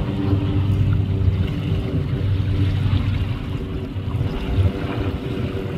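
Steady, low engine drone at an even pitch, dipping slightly in loudness about four seconds in.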